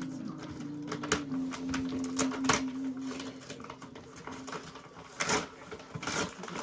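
Gift-wrapping paper crinkling and tearing as a present is unwrapped: an irregular string of sharp crackles and rips.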